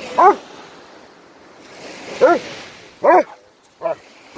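A dog barking: four short, high-pitched barks, the first right at the start and three more close together in the second half.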